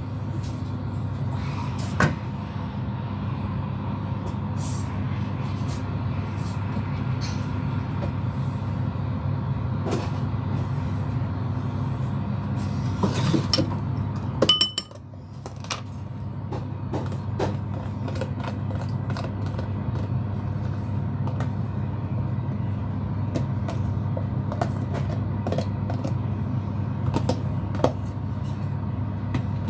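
A steady low machine hum, broken by small clicks and knocks of a metal spoon stirring in a ceramic bowl and a plastic margarine tub being handled. About halfway through the hum drops out for a moment and then comes back.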